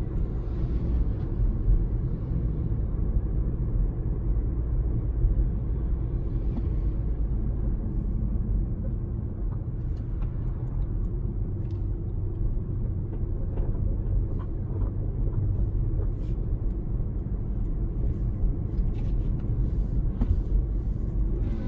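A car driving along a road: a steady, low rumble of engine and road noise, with a few faint ticks.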